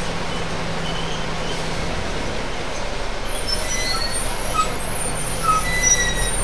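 Ride noise inside a city bus cabin: a steady engine and road drone. From about three seconds in come brief high squeaks and chirps, typical of the body panels and fittings creaking as the bus moves.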